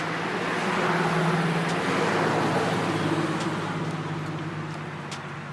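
Road traffic: a passing vehicle's tyre and engine noise swells about a second in and fades away over the last couple of seconds.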